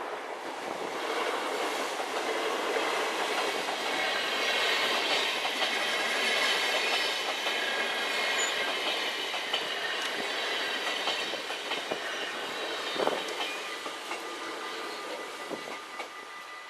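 InterCity train passing over the level crossing: the rush of wheels on rails builds over the first few seconds, stays loud through the middle and fades away near the end, with a couple of knocks from the wheels late in the pass.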